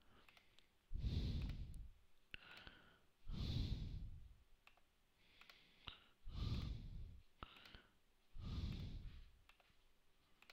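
A person breathing close to the microphone: four slow breaths about two and a half seconds apart, with faint mouse clicks in between.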